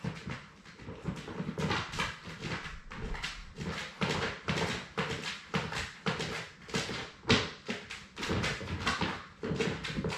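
Six-week-old Labrador Retriever puppies stirring close to the microphone: a dense, irregular run of clicks, scrapes and rustles.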